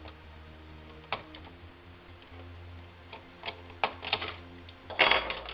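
Scattered clicks and light knocks of laptop parts being handled, the loudest cluster near the end, over quiet background music with steady held notes.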